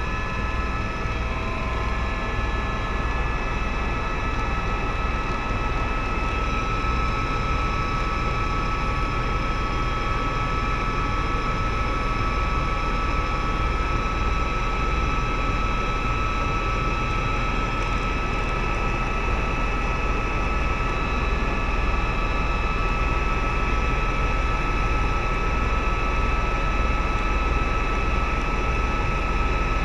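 Tour helicopter in flight, heard from inside the cabin: a steady whine of several high tones over a dense low rumble from the engine and rotor.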